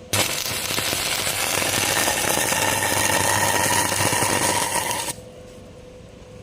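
Electric arc welding: the arc crackles and sputters, striking suddenly and breaking off after about five seconds over a steady low hum.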